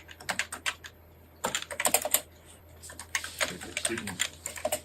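Computer keyboard typed quickly in the NICOLA thumb-shift kana layout: rapid runs of key clicks, broken by two short pauses, about one second in and just after two seconds in.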